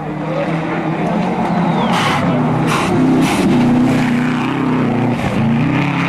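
Rally car engine at high revs on a gravel stage, its pitch rising and falling in steps with gear changes as the car approaches and passes, getting louder in the first second. A few sharp cracks come about two to three and a half seconds in.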